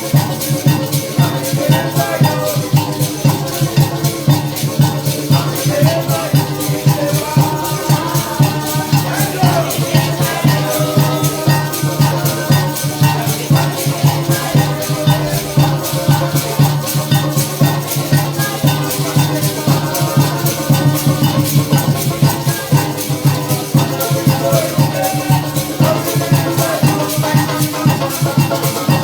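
Live parang music: a band playing a Latin-Caribbean song, with maracas shaking a fast, steady rhythm over a held bass line and melody.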